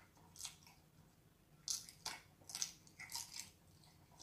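About five short, wet mouth-and-hand sounds of eating raw octopus: chewing on its flesh and its slippery arms being pulled about in gloved hands.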